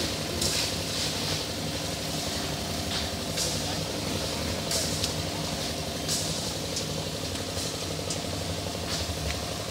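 An engine runs steadily at a construction site during concrete casting, with irregular sharp scrapes and clinks every second or so, the kind made by shovels and iron pans.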